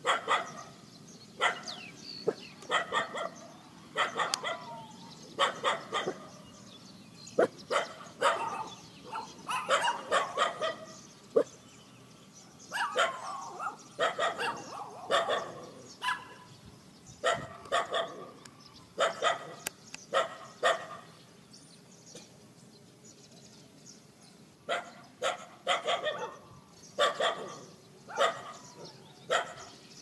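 Dogs barking in repeated bouts of short barks, with a lull of a few seconds in the later part.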